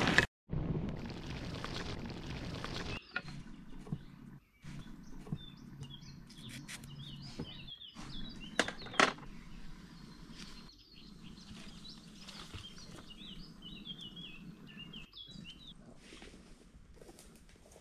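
Outdoor ambience with small birds chirping in short repeated calls, a few sharp clicks about nine seconds in, and a louder steady rushing noise over the first three seconds. The sound cuts out abruptly several times.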